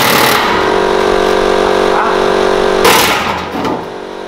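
Pneumatic air chisel cutting through the steel lid of an oil drum: a loud, steady rapid-fire hammering buzz. There is a sharp burst about three seconds in, and the cutting dies down shortly before the end as the lid comes free.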